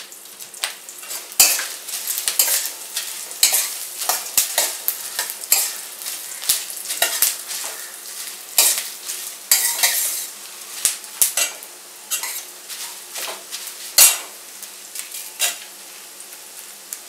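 Steel spatula scraping and knocking irregularly against a stainless steel kadai while stirring coriander seeds and bay leaves roasting in a little oil on low heat, with a faint sizzle underneath.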